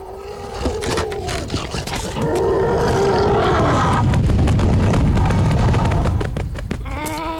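Cartoon sound effects: a lion character's short rising-and-falling vocal grunts and groans, then from about two seconds in a loud, low rumble of heavy footfalls as a huge animal lumbers past.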